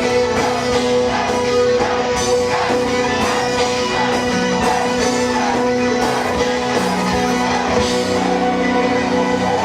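Live rock band playing an instrumental passage: held chords that change a few times, under a lead line that bends up and down in pitch.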